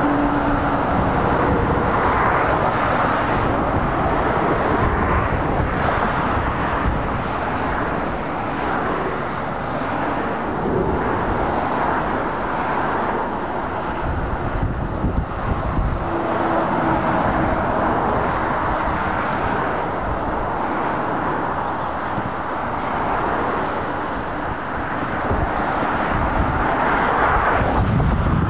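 Dual-carriageway traffic going by: heavy lorries and cars make a continuous rush of tyre and engine noise. It swells and eases as each vehicle passes, and is loudest near the end.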